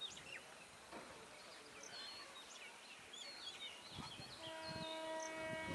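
Small birds chirping over a quiet open-air background. About four seconds in, the approaching EMU electric local train starts a long, steady horn blast.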